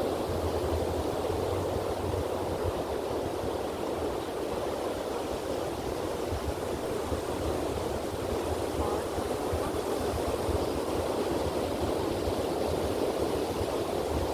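Steady, even rush of ocean surf breaking along the beach, with no single wave standing out.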